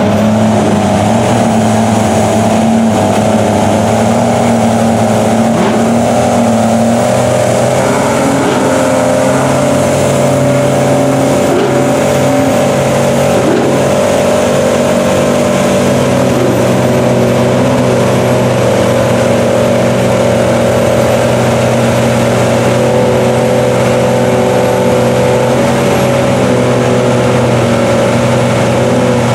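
Lifted Dodge Ram pickup on tall mud tyres working through deep mud: its engine runs loud and steady at high revs under load, with the tyres churning mud and water.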